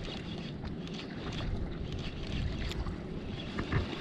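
Wind on the microphone and water moving against a kayak's hull, with faint scattered clicks.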